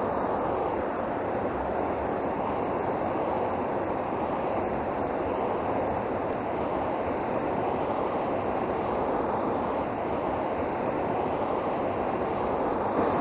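Fast mountain river rushing over rocks and through rapids, a steady, unbroken water noise.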